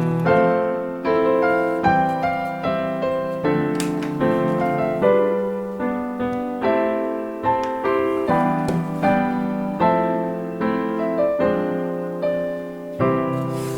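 Background music: piano or electric piano playing a gentle melody, one note struck after another in an even rhythm, each fading before the next.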